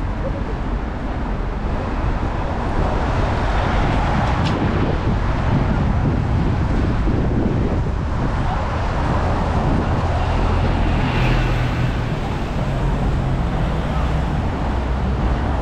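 Busy city road traffic: a steady mix of engine rumble and tyre noise from passing vehicles. A deeper engine hum comes in about two thirds of the way through, with a brief click before it.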